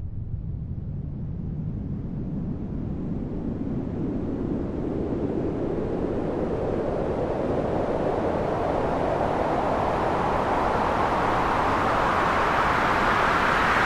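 White noise riser sweep: a rushing noise that slowly rises in pitch and grows louder throughout, like a filter opening, used as a build-up transition effect.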